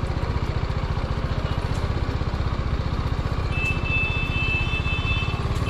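BMW motorcycle engine running at low speed, with a steady, evenly pulsing low rumble. A high steady tone sounds for about a second and a half, starting about three and a half seconds in.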